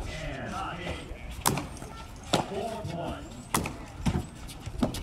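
Four sharp cracks of a hard jai alai ball in play, about a second apart, as it strikes the fronton wall and is caught and flung from the cestas. Voices chatter underneath.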